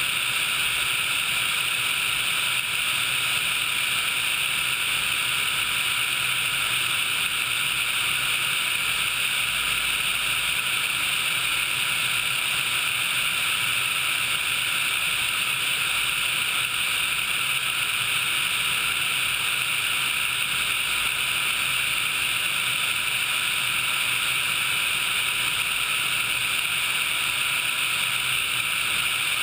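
Sikorsky HH-60 Pave Hawk helicopter in flight: an even, unchanging rush of twin-turboshaft engine and rotor noise, with a faint steady whine.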